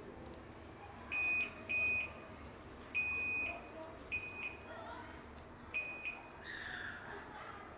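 Microwave oven control panel beeping as its keypad buttons are pressed to set high power: five short high-pitched electronic beeps, some longer than others.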